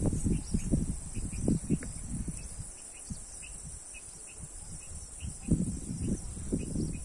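Outdoor ambience in a farm orchard: a steady high insect drone, with irregular low rumbles that ease off in the middle and return near the end, and a few faint bird chirps.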